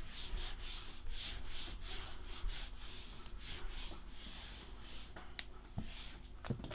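Hand-held eraser rubbing across a whiteboard in quick back-and-forth strokes, wiping off marker writing, about three swishes a second. The strokes fade out near the end, and a couple of light clicks follow.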